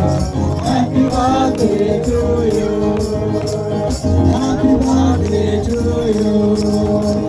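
Live band music with a voice singing, tambourines jingling in rhythm along with it.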